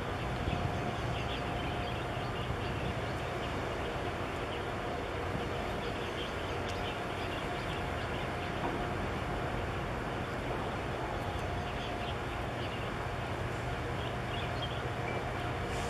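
Steady low drone of a passing 1,700-TEU container ship's engine over a constant wash of noise, with faint high ticks scattered through it.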